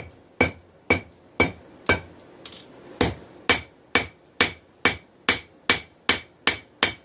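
Hand hammer striking a hot bar of 416 stainless steel on an anvil, about two ringing blows a second, with a short pause about two and a half seconds in before the blows resume.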